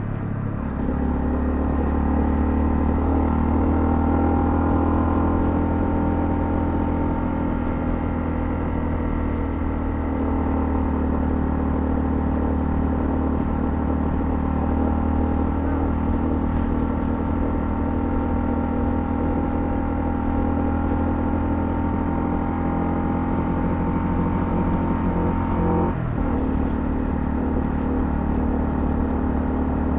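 Honda CL250's single-cylinder engine running steadily under way at a fairly constant speed, with a brief break in the engine note about 26 seconds in.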